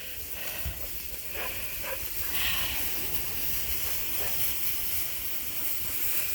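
Steady hiss-like noise with a low rumble underneath.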